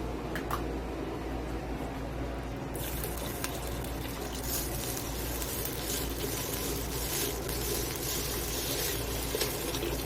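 Orange juice poured from a bottle into a cooking pot: a steady pouring, splashing hiss that starts suddenly about three seconds in, after a few light clicks.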